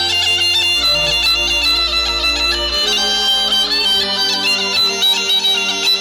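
Bulgarian gaida (bagpipe) playing a quick folk melody, with low bass notes changing every second or two underneath it.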